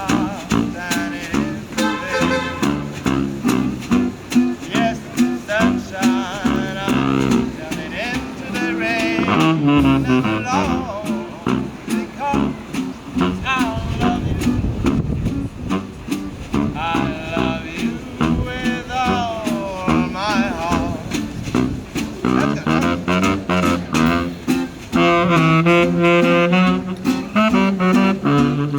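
Instrumental music with a saxophone melody over a steady rhythmic accompaniment.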